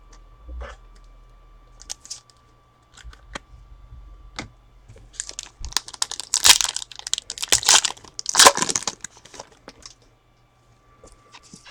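Crinkling and tearing of a foil trading-card pack wrapper, loudest in a run of dense crackling a little past the middle, with light clicks and rustles of cards being handled before it.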